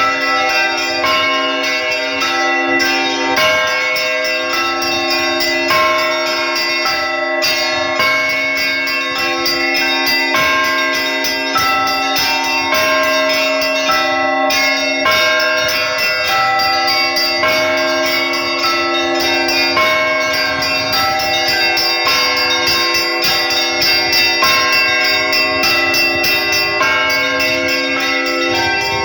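Russian Orthodox church bell ringing (zvon): one bell-ringer sounds a set of tower bells of different sizes together. Quick, dense strikes of the small bells run over the sustained tones of the larger bells.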